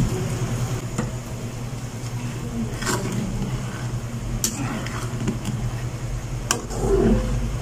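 Metal slotted spatula stirring soup in a metal wok, with a few sharp clinks of metal on metal over a steady low hum.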